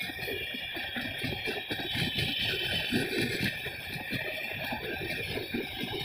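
Passenger coaches of an express train rolling past, their wheels clattering over the rail joints in an irregular run of knocks and rumbles.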